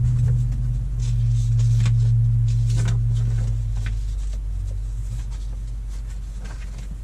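Steady low hum of a stationary car heard inside its cabin, swelling about a second in and easing off after about four seconds, with a few faint rustles of paper sheets being handled.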